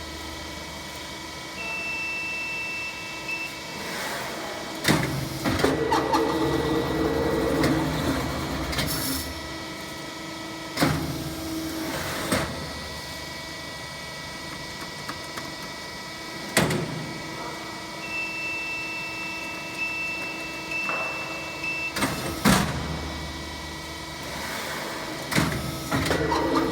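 Hydraulic ceiling fan rotor die casting machine being test-cycled: a steady machine hum, with loud metallic clanks every few seconds and stretches of rushing hydraulic flow as the mould opens and closes. A short run of high beeps sounds twice, about two seconds in and again past the middle.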